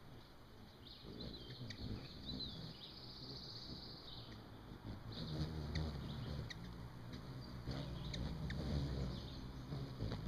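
Small birds chirping, with short high chips and ticks, and the low buzzing hum of hummingbird wings hovering at a nectar feeder, strongest from about halfway through.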